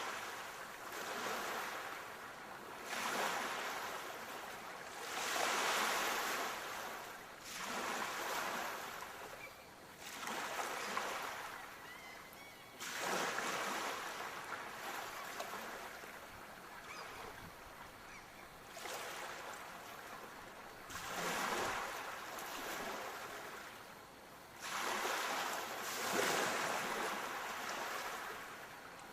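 Sea waves washing onto the shore, a rushing hiss that swells and ebbs in surges every few seconds.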